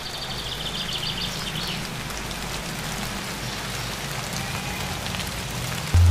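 Steady rain falling, with a few high chirps in the first couple of seconds. A loud low hum cuts in suddenly just before the end.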